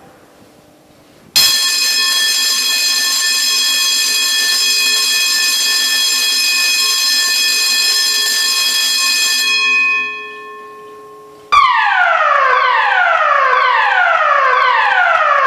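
Building fire alarm evacuation system sounding. A steady electronic alarm tone starts about a second in, holds for about eight seconds and dies away. After a short gap a repeating falling tone begins, each sweep dropping in pitch over about a second, the pattern of the German standard evacuation signal.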